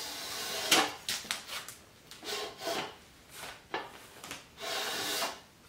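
Metal support arm of a DeWALT DWX726 miter saw stand scraping as it is slid into the stand's tubular beam, in several short rubbing strokes with a couple of sharp knocks.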